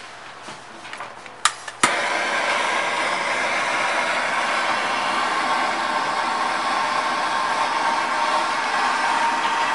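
Gas torch clicked twice as it is lit, a little under two seconds in, then burning with a steady hiss as it heats copper for soldering.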